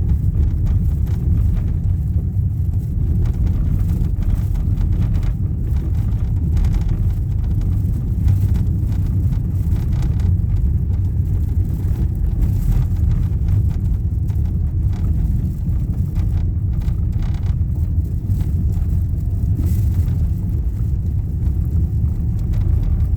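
Car driving on a gravel road: a steady low rumble of road noise with scattered light knocks, the knock that this car makes on gravel.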